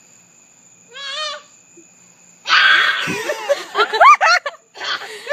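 A toddler crying in fright: a short wavering whimper about a second in, then from about halfway through loud, wavering wails.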